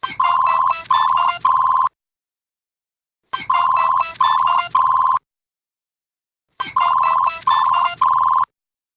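Cartoon wrist watch ringtone: a short electronic beeping jingle rings three times. Each ring lasts about two seconds and is followed by about a second and a half of silence.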